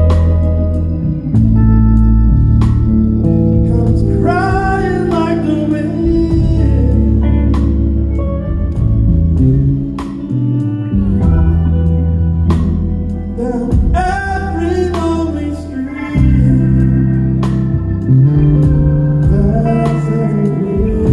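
Live band playing a slow song: sustained electric bass notes and a drum kit with cymbal strikes, under a lead line that glides in pitch, once about four seconds in and again about fourteen seconds in.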